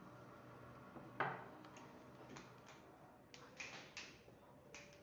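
Faint handling noise: a few short clicks and crinkles from a plastic bag of cream cheese being squeezed to pipe it, with one sharper knock about a second in.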